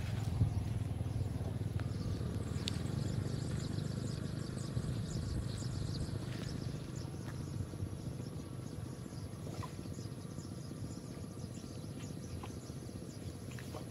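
Outdoor ambience: a steady low rumble, with insects chirping faintly and a thin high steady insect drone.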